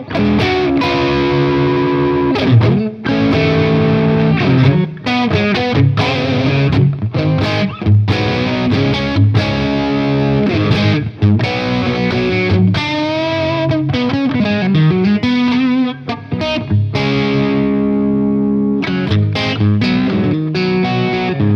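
Overdriven electric guitar: a Telecaster played through an Origin Effects Revival Drive pedal into a VHT amp. It plays sustained chords and single-note phrases with string bends, and stops briefly between phrases.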